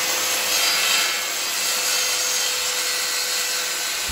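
Guild 1400 W 185 mm circular saw cutting through hardwood plywood: a steady, even rush of blade through wood with one constant tone under it.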